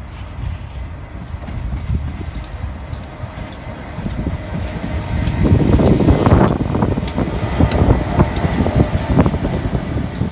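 GB Railfreight Class 59 diesel locomotive 59003, with its two-stroke EMD V16 engine, approaching and passing close by. Its engine rumble is loudest about six seconds in. Open box wagons then roll past, their wheels clicking steadily over the track.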